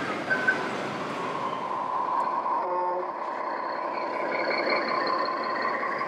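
Radio-controlled scale model vehicle running, with a steady whine from its drive over a hall's background noise. There are two sharp knocks near the start and a few short tones about halfway through.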